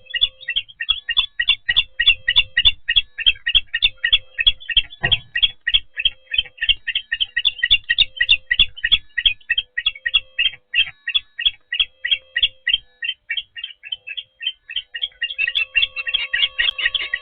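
Osprey calling at the nest: a long run of short, high chirps, about five a second, growing denser near the end. Beneath it a faint low hum pulses about once a second.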